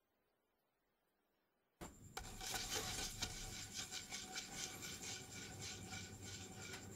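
Plastic bottle spinning on a tabletop, a rapid scraping rattle of the bottle rubbing the surface that starts suddenly about two seconds in and slowly fades as the spin winds down. Near silence before it.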